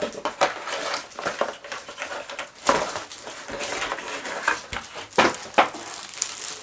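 Packaging being handled as a keyboard is unpacked: plastic wrapping and cardboard rustle and crinkle irregularly, with a few sharp snaps, the loudest about three seconds in and again near five seconds.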